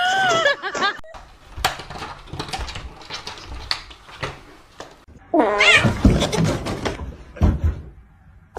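A cat meowing: a short call at the start and a second, louder one about five seconds in, with scattered clicks and rustling between.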